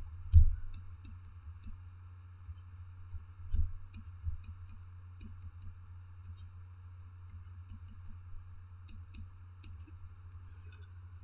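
Scattered light clicks and taps of a pen stylus on a drawing tablet as a structure is drawn, with two louder low thumps, one right at the start and one about three and a half seconds in, over a faint steady low hum.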